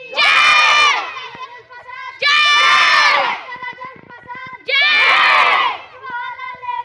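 Crowd of schoolchildren shouting a patriotic slogan in unison, call and response: three loud group shouts about two seconds apart, with a single child's voice leading the call in the gaps between them.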